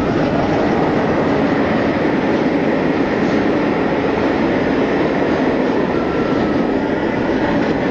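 Steel inverted roller coaster train running at speed along its track, heard on board from the front row: a loud, steady rush of track and wheel noise.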